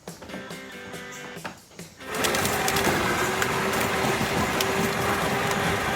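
Quiet background music, then about two seconds in a small electric motor starts whirring steadily with a constant hum, much louder than the music.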